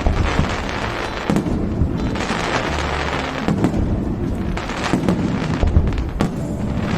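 Fireworks display: a rapid run of shells bursting, booms one after another with crackling and hissing between them.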